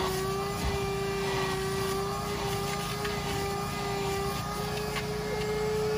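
Vacuum cleaner running with a steady whine, its hose drawing rainwater out of a flood-soaked car floor carpet.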